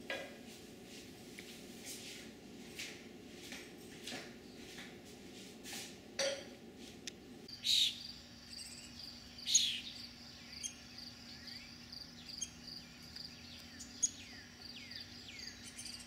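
Backyard songbirds chirping with short, sharp calls and clicks, a few louder than the rest, and from about halfway a steady high-pitched insect trill underneath.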